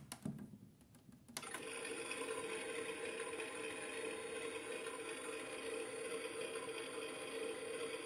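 Theo Klein Miele Softtronic toy washing machine being started: a few button clicks, then about a second and a half in a steady electric running sound begins as its program starts in the 'water in' stage.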